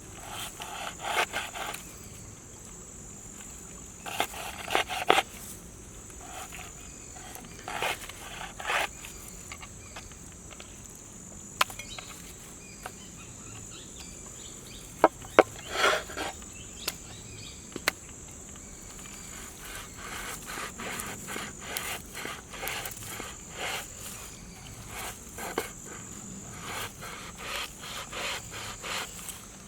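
Insects keep up a steady high trill throughout, while close by come scattered clicks and short bursts of rustling and scraping, the loudest a few seconds apart early on and a busier run of them in the second half.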